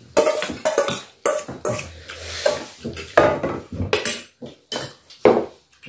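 Stainless steel bowls, plates and serving spoons clinking, knocking and scraping against each other as food is served and eaten at a shared table, in a string of irregular clatters.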